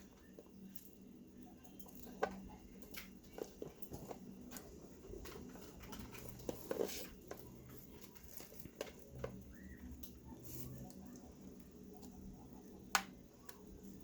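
Faint, scattered small clicks and taps of needle-nose pliers against a wire connector and the coffee maker's plastic housing as a connector is worked onto its terminal, with one sharper click near the end.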